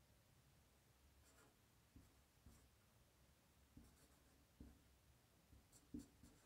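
Faint marker writing on a whiteboard: soft taps and short scratchy strokes as the pen touches down and moves, the strongest tap near the end.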